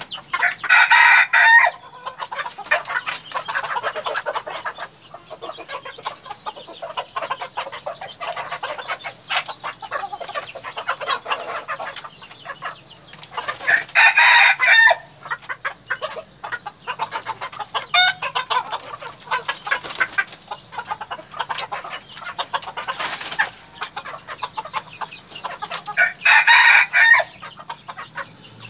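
Red junglefowl-type rooster crowing three times, each a short crow of about a second, roughly twelve seconds apart. Softer clucking comes between the crows.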